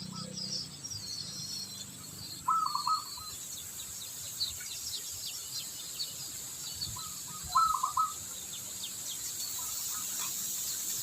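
Wild birds calling outdoors. A short, choppy call phrase repeats about every five seconds, with fainter high chirps between, over a steady high hiss.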